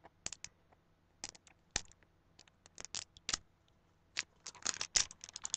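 Small plastic blind-capsule toy (a My Little Pony Fash'ems capsule) being handled and its plastic wrapper peeled open: scattered clicks and crinkles that come thicker and louder in the last second or so.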